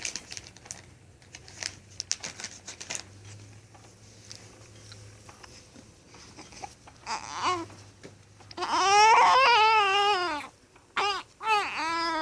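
Infant fussing, then crying: soft mouth clicks at first, a short cry about seven seconds in, a long loud high-pitched wail, and short cries again near the end. The baby is upset over having the hiccups.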